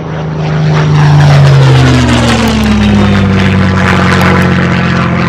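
Propeller airplane engine sound effect: a loud fly-by that starts suddenly and whose engine pitch slides down as it passes.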